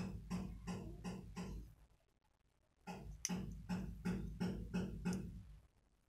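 Background music with a steady beat of short pulses, about three a second, that breaks off for about a second near the two-second mark and then picks up again.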